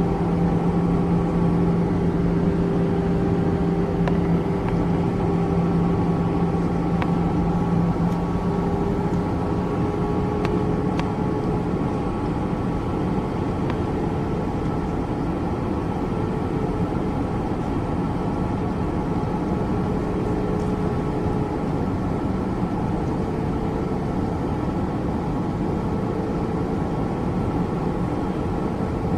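Airbus A320 jet engines and airflow making a steady rushing noise in flight, with a few steady hum tones; the lowest hum fades out about nine seconds in.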